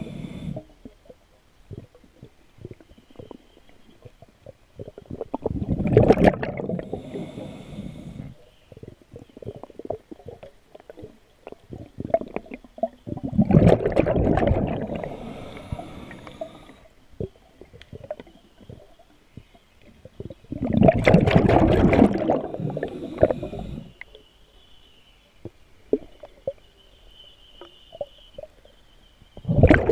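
A scuba diver breathing through a regulator underwater. Exhaled air leaves in bubbling, gurgling bursts about every seven to eight seconds, each lasting a couple of seconds, with quieter inhalations and faint clicks in between.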